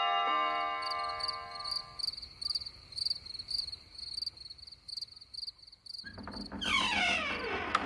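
A cricket chirping steadily, about three chirps a second, after chime-like music notes ring out and fade at the start. Near the end a falling, rushing sweep comes in over it.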